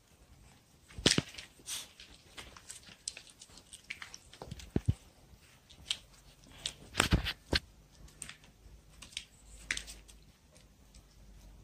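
A young puppy gnawing and chewing a piece of pork skin: irregular crunchy clicks and small tearing sounds, the loudest about a second in and again around seven seconds in.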